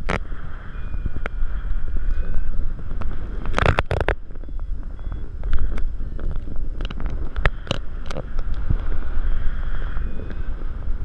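Airflow buffeting a GoPro Hero 3 camera's microphone in paraglider flight: a steady rush of wind noise. A few sharp clicks and knocks come through it, with a cluster of them about three and a half to four seconds in.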